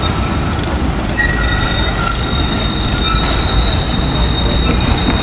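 Tram's steel wheels squealing on a curve of street track: several high, steady squeal tones over a low rolling rumble.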